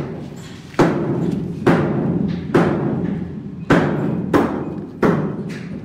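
Six heavy bangs at uneven intervals, each booming and ringing out inside a steel shipping container.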